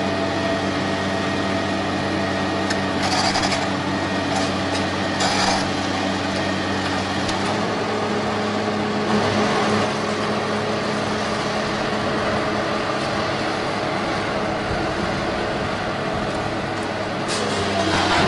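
Tracked excavator's diesel engine running steadily with a low hum, its note changing about halfway through, with two brief knocks a few seconds in. Near the end the noise swells as the machine starts to tip over towards the pit.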